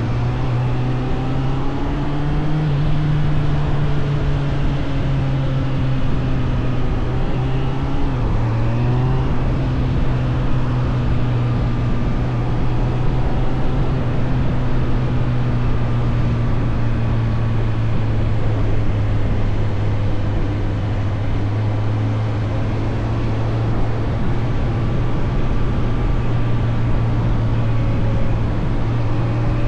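Suzuki GSF 600 Bandit's inline-four engine running under way at fairly steady revs. Its note rises about two seconds in and dips briefly around eight seconds before settling again.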